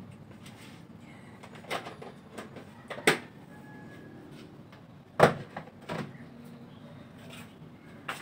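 Portable gas stove being handled and lit: four separate sharp clicks and knocks, the loudest about three and five seconds in.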